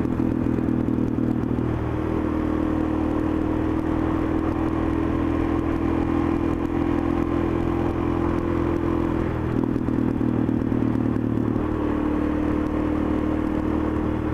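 Suzuki DR-Z400 supermoto's single-cylinder engine running at a steady road speed, its note shifting slightly a few times.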